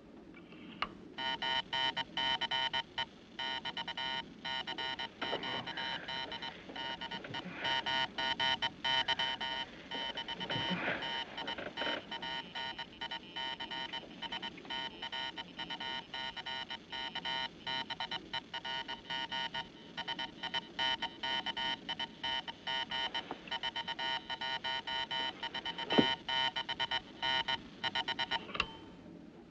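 Morse code sent on a ship's wireless telegraph key as a distress call: a buzzing tone of several pitches keyed rapidly on and off in dots and dashes. One sharper click stands out near the end.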